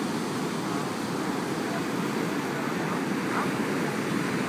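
Steady rumble of ocean surf breaking on a sandy beach.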